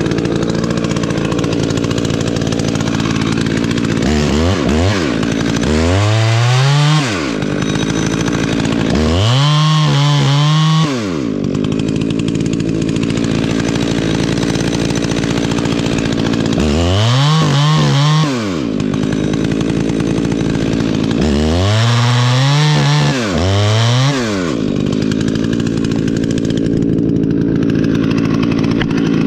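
Two-stroke chainsaw idling, with about six bursts of throttle in which the engine revs up and drops back to idle.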